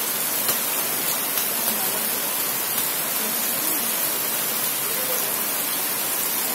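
Heavy rain pouring onto a wet, flooded paved courtyard: a steady, dense hiss with small drip and splash ticks scattered through it.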